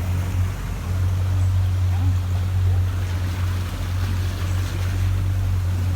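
Boat motor running steadily with a low hum, over the rush of water and wind.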